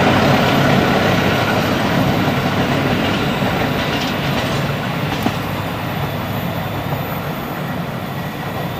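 Taksaka passenger train's carriages rolling away along curved track, the wheel and rail noise fading gradually as the train recedes.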